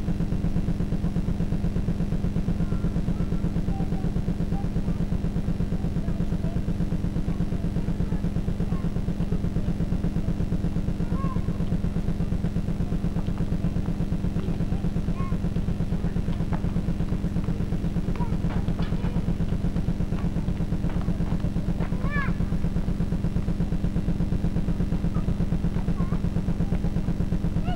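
A loud, steady low buzz with a fine rapid pulse. Faint children's voices and calls come through over it now and then, a little more often in the second half.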